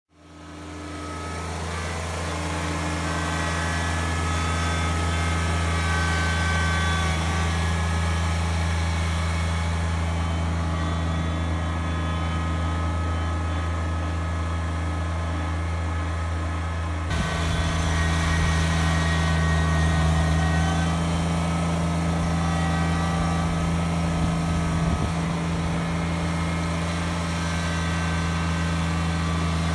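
Kubota BX23S sub-compact tractor's three-cylinder diesel engine running steadily as it drives through snow. It fades in at the start, and a bit past halfway the sound changes abruptly and gets slightly louder.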